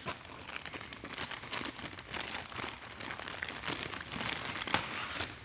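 Plastic bags of seat-mounting hardware crinkling and rustling as gloved hands handle them, an irregular run of crackles.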